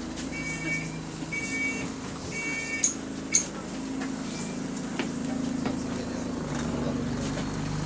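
Bus door warning beeps about once a second, followed by two sharp clunks near three seconds in as the doors shut, over the steady hum of the bus's diesel engine.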